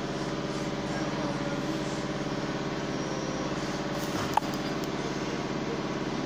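A motor running steadily with a low, even hum, and one sharp click about four seconds in.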